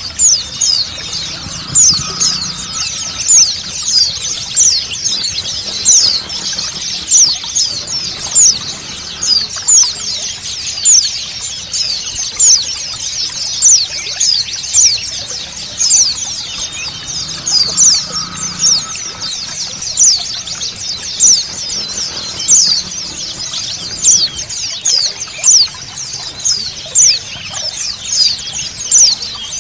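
A flock of white-eyes (pleci) twittering together, with many quick, high chirps overlapping without pause. Running water flows steadily underneath.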